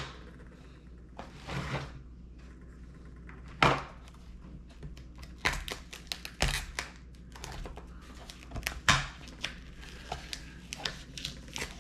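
Tape, a stiff plastic wrap and foam being peeled back and pulled off a lithium battery pack by hand: irregular crinkling and rustling with sharp knocks, the loudest about three and a half, six and a half and nine seconds in.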